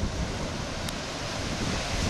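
Wind buffeting the microphone: a steady rushing noise with an irregular, gusty low rumble that grows a little stronger near the end.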